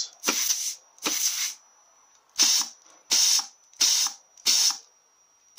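Short blasts of compressed air from a blow nozzle, regulated to about 65 psi, fired into the clutch-pack apply ports of a Mazda FN4AEL / Ford 4F27E automatic transmission case: an air pressure test showing that the clutch pistons apply. Six hisses of about half a second each, two, then a pause, then four.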